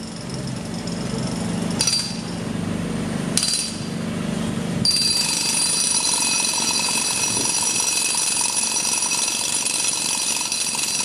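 Power tool working on steel tram rail: a low hum with a few sharp metallic clinks, then from about five seconds in a loud, steady, high-pitched ringing grind.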